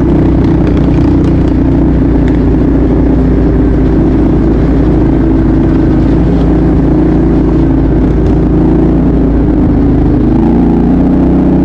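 ATV engine running at steady revs, its pitch shifting briefly near the end.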